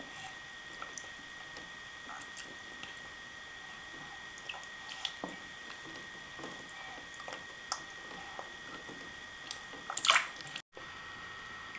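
Soft bathwater sounds with scattered small drips, squishes and clicks as a baby mouths a rubber bath toy, over a faint steady high tone. About ten seconds in comes a brief, louder rush of noise, then the sound drops out for a moment.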